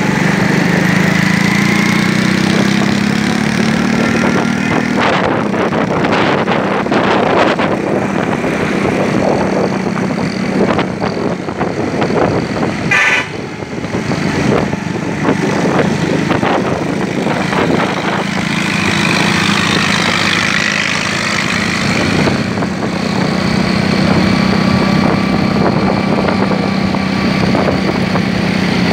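A vehicle's engine runs steadily while driving in traffic, with the rush of road noise. A horn sounds briefly about halfway through and again a few seconds later.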